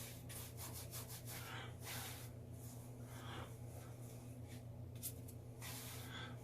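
Hands rubbing beard butter into a beard: faint, irregular swishes of palms and fingers working through the hair, over a steady low hum.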